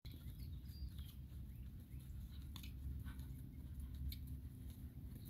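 Soft, irregular thuds and crunches of a horse's hooves trotting on sandy arena footing, over a low steady rumble.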